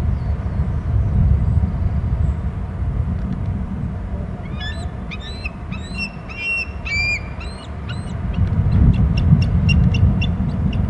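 Bald eagle giving alert calls: a run of high, arched, chirping whistles starting about four seconds in, then a quick series of short sharp chips. A steady low rumble runs underneath.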